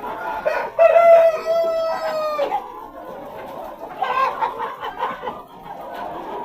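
A rooster crows once, one long call lasting about a second and a half, over the constant clucking of a flock of chickens.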